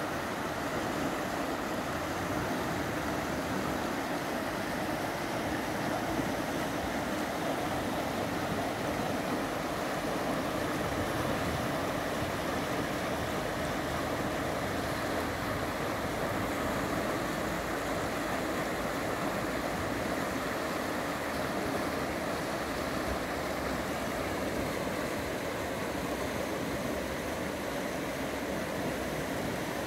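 Fast, shallow river rushing over stones and small rapids: a steady, even rush of water.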